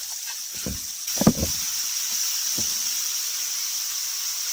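Food sizzling steadily in a hot iron frying pan. There are a few brief low knocks or murmurs early on.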